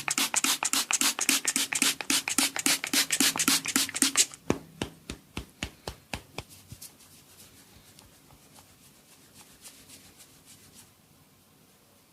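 Fingers scratching and rubbing an oiled scalp in quick even strokes, about six a second. About four seconds in the strokes become slower and separate, about three a second, then fade to faint rubbing.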